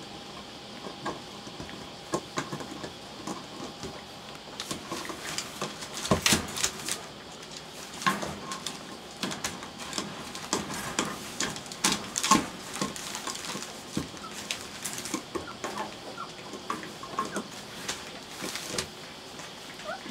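Rough collie puppies, about three weeks old, nursing: irregular wet suckling clicks and smacks with small squeaks and grunts scattered throughout.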